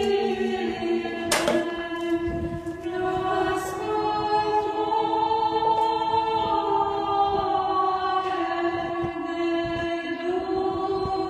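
Monastery choir singing unaccompanied in slow, long-held notes. A single sharp knock about a second and a half in.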